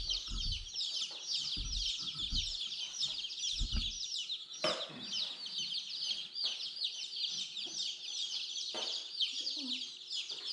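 A brood of baby chicks peeping constantly, many short falling cheeps overlapping into one dense chorus. A few low thumps sound in the first four seconds, and a few sharp clicks come later.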